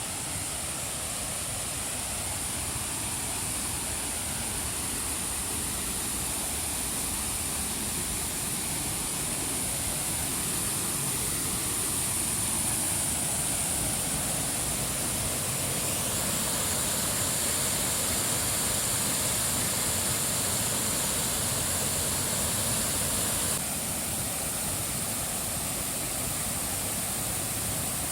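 Steady rushing of water cascading down a forest stream, a waterfall close by. It shifts in level about sixteen seconds in and drops suddenly about twenty-four seconds in.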